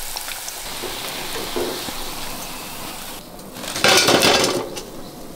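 Hot oil sizzling as batter-dipped bondas deep-fry in a pan. About four seconds in, a short metallic clatter as the fried bondas are dropped from a slotted spoon into a perforated steel strainer.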